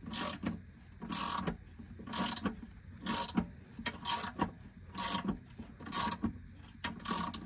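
A hand ratchet being worked in short rasping strokes, eight of them about a second apart.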